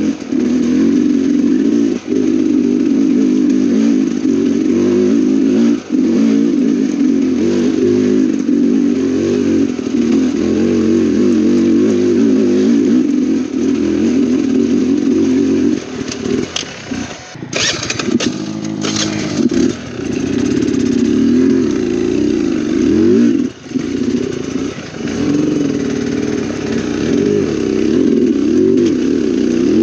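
Dirt bike engine at low speed over rocky trail, the revs rising and falling with throttle and clutch and briefly dropping off now and then. About halfway through, the engine falls low for a couple of seconds amid a short run of clattering knocks.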